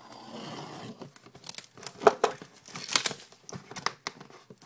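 Plastic shrink wrap on a trading card box being slit with a blade and torn off: a short hiss as it is cut, then a run of sharp crinkling crackles as the plastic is pulled away.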